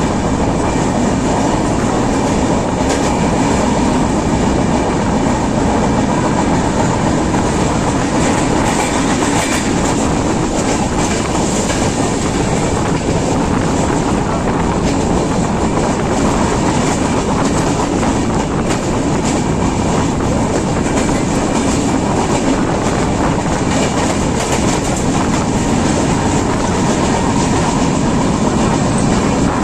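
Running noise of a passenger express train at speed, heard at an open coach door: a steady rumble of wheels on the rails with rushing air, and occasional clicks as the wheels pass over rail joints and points.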